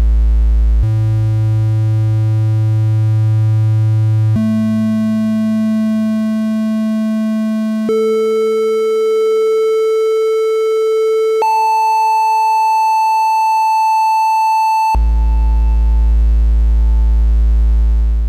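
LM13600 OTA single-amplifier VCO sounding a steady triangle-wave tone. It starts on a low buzzy A, steps up one octave at a time four times, each note held about three and a half seconds, then drops back to the low note near the end.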